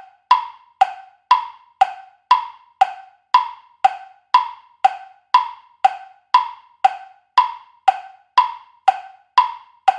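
Quiz countdown timer sound effect: a wooden tick-tock, about two clicks a second, alternating between a higher and a lower pitch.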